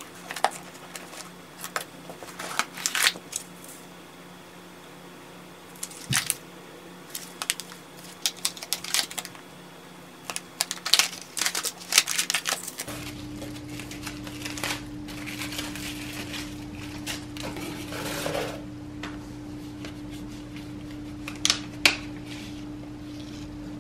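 Hands unpacking boxes: scattered taps, scrapes and rustles of a cardboard gift box and its wrapping. About 13 s in, a cardboard shipping box and crinkly honeycomb paper filler are handled over a low steady hum.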